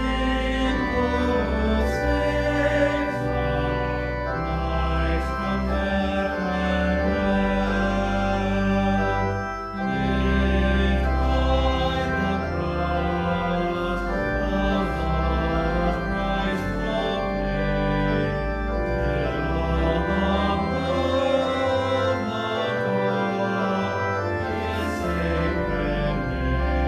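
Church organ playing slow, held chords over a deep pedal bass line, the chords changing every second or two.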